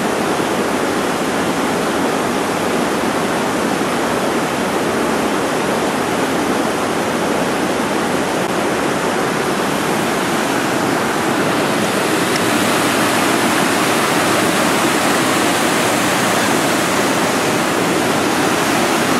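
Steady rush of whitewater creek rapids pouring over boulders, mixed with heavy rain, growing a little louder about two-thirds of the way through.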